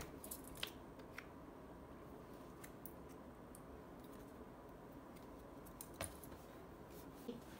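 Near silence: faint room tone with a few scattered small clicks, likely from a small object being handled in the hands; one stands out about six seconds in.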